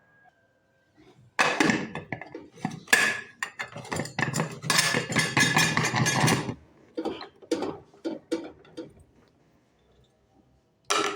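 A metal lid and cooking pot clatter and scrape as the pot is covered. A dense run of clanking is followed by scattered knocks, with one sharp clank near the end.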